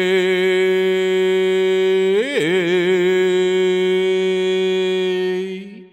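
A man's voice chanting in a sound-healing mantra, holding one long sung tone with a wavering vibrato. The pitch dips and slides back up about two seconds in, and the tone fades out near the end.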